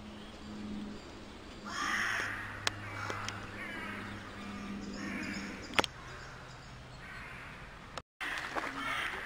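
Crows cawing: a run of harsh calls starting about two seconds in and lasting several seconds, with more near the end. A low steady hum and a couple of sharp clicks sit underneath.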